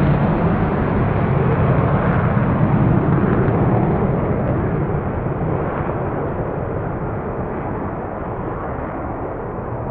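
F-35A Lightning II's single Pratt & Whitney F135 turbofan engine: a loud, even jet rumble that slowly fades as the aircraft moves away.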